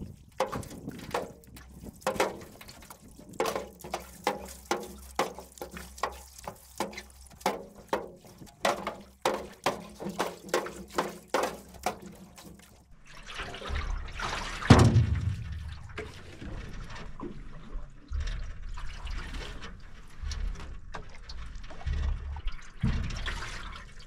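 Canoe paddle strokes splashing and dripping about twice a second beside an aluminum canoe being paddled hard against a fast stream current. About 13 seconds in the strokes stop, and an uneven low rumble follows, with one loud thud about 15 seconds in.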